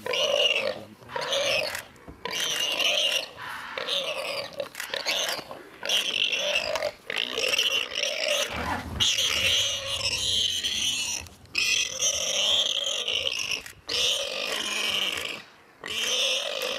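Warthog squealing in distress as a leopard holds it in its jaws: repeated loud, rough squeals, each about a second long with short breaks between.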